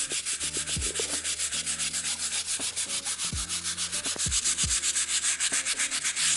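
Scrub brush scrubbing a wet oil stain on a driveway in fast back-and-forth strokes, about eight a second, working brake cleaner into the spot; the scrubbing stops abruptly at the end.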